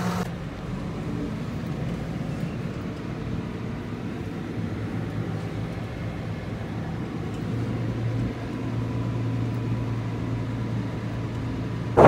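Tractor engine running steadily, heard from inside the cab as a low drone that grows a little stronger about seven and a half seconds in.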